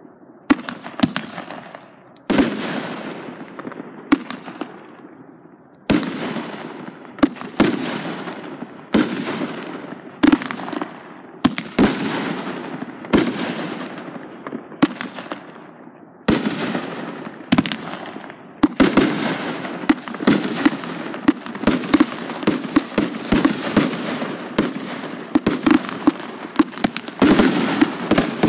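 Aerial firework shells bursting in quick succession, each sharp bang trailing off in a fading rumble. The bursts come roughly once a second and thicken into a near-continuous barrage in the last ten seconds.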